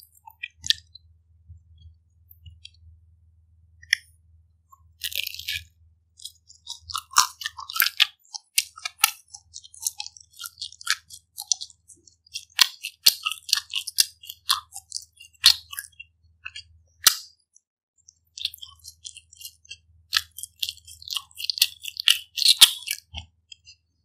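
Close-miked chewing of pizza: irregular crunchy bites and wet mouth clicks coming in bouts with short pauses between them.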